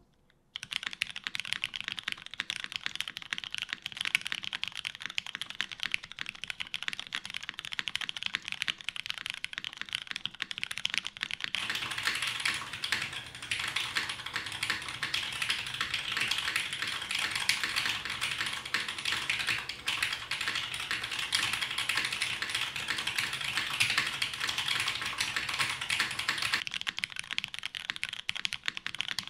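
Continuous fast typing on a custom mechanical keyboard with lubed Cherry MX Brown tactile switches on a polycarbonate plate, GMK keycaps and TX stabilisers. It starts about half a second in and gets busier and fuller from about twelve seconds in until a few seconds before the end.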